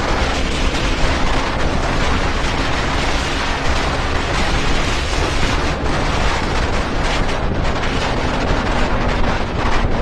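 Motorcycle riding at speed: a heavy, steady rush of wind on the microphone over a faint engine note that holds at steady revs.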